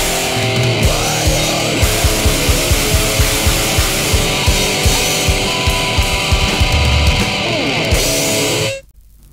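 Grindcore band recording: distorted guitar and drums with a steady beat, cutting off abruptly near the end as the track ends.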